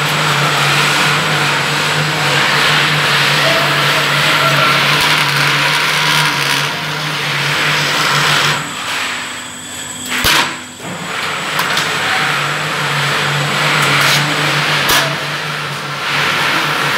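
Roll forming machine for POP ceiling strips running, a steady hum with a hiss over it. The hum drops out for a few seconds just past halfway, with a sharp clank about ten seconds in and another near the end.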